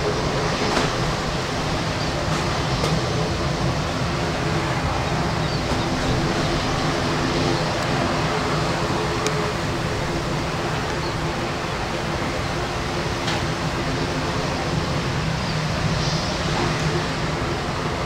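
Jet engines of an Airbus A320 airliner running as it rolls along the runway: a steady rush of noise over a low droning hum.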